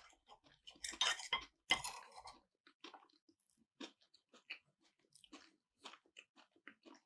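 A person chewing a mouthful of sushi close to the microphone: a couple of louder, noisy bites or crunches about one and two seconds in, then soft, irregular wet chewing clicks.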